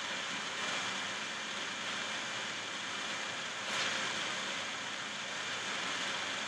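A steady hiss, with a brief louder rush a little under four seconds in.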